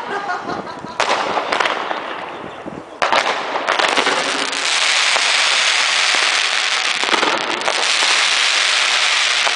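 Fireworks going off: a sharp bang about a second in and another about three seconds in, then a loud, steady hissing crackle.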